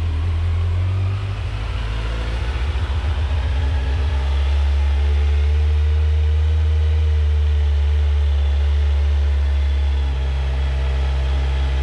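2019 Kawasaki Z900's inline-four engine idling cold just after its first start on a new bike, running steadily through the stock exhaust; the idle lifts a little about four seconds in.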